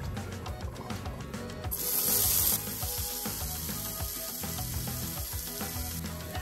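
Grated pickled cucumbers dropped into hot vegetable oil in a non-stick frying pan, sizzling: a loud hiss about two seconds in, then a steady, quieter sizzle, with background music underneath.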